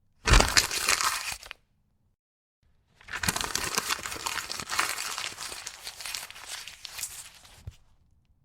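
A sheet of paper being crumpled into a ball by hand: dense crinkling and crackling. There is a short, loud burst, a pause, then a longer stretch of crumpling that slowly tapers off.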